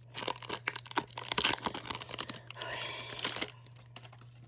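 Baseball card pack wrapper being torn open and crinkled by hand. It runs for about three and a half seconds, with a longer tearing rasp near the end, then stops.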